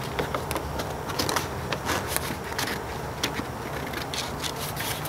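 Scissors cutting through a sheet of paper: a run of irregular sharp snips and paper rustles, over a steady low hum.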